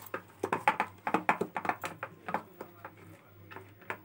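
Quick, irregular clicks and taps of a silicone brush against a thin plastic box as ghee is spread over its bottom, over a steady low hum.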